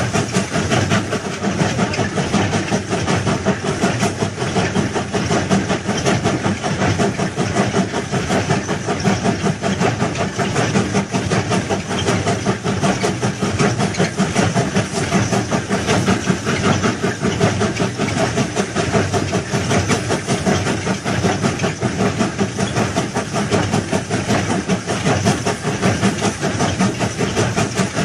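Railway track-laying machine running, a steady, unbroken mechanical noise.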